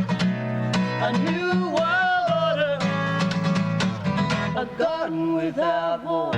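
A song with strummed acoustic guitar and a singer's voice carrying the melody in two phrases.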